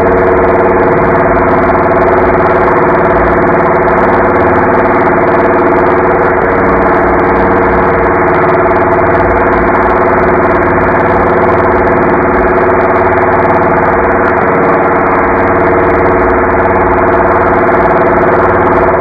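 Robot vocoder voice effect from the Voice Changer Plus app, played at quarter speed: a loud, steady droning hum with several fixed tones held throughout and no recognisable words.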